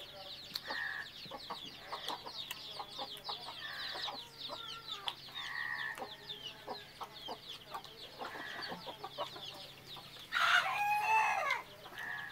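Village chickens clucking on and off over a constant chatter of high chirps. About ten seconds in, a rooster crows loudly for just over a second.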